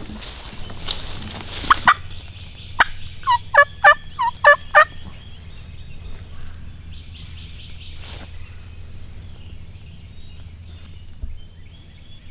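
Wild turkey gobbling: a run of about six loud, quick calls over two seconds. Before it, about two seconds of rustling footsteps through brush.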